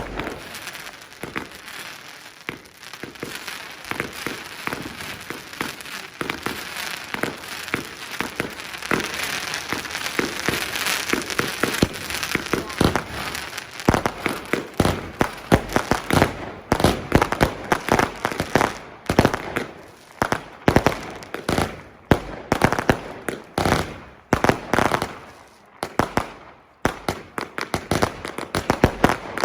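New Year's fireworks going off: a dense crackle of many small bangs for the first half, then a rapid series of separate loud bangs, about one or two a second, through the second half.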